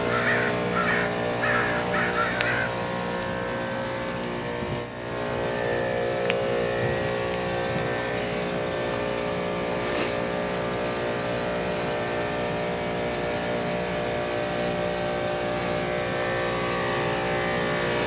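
Carrier WeatherMaker 50TCQD 12.5-ton rooftop heat pump running through a defrost cycle with its outdoor coil frosted: a steady machine hum made of several held tones.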